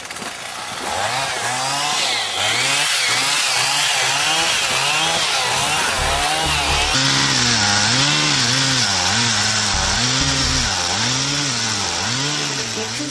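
Chainsaw cutting wood, its engine pitch rising and falling about once a second as the chain works through the log.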